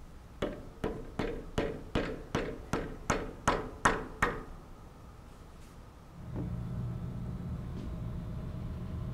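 A mallet tapping the top of a control valve's trim stem about eleven times in quick, even succession, driving the stem down through the packing of the stuffing box assembly held in a vise. A steady low hum sets in a couple of seconds after the last blow.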